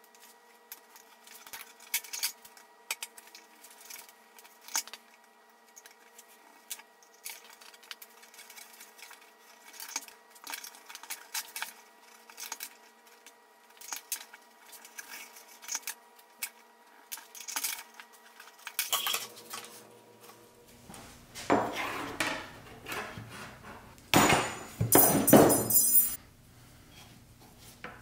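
Light metal clicks and clinks of a thin steel wire being bent by hand and with pliers around nails in a wooden board. In the last third come a few longer, louder rubbing noises as the wire is worked.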